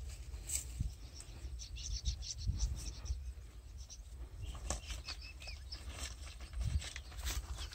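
Wind rumbling on the microphone, with scattered short bird chirps and a few brief rustles of handling.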